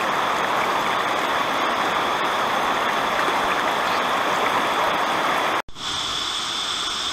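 Shallow river rapids, water rushing steadily over rocks, with a steady high insect trill behind. About five and a half seconds in it cuts abruptly to a quieter sound of calmer water, the insect trill still going.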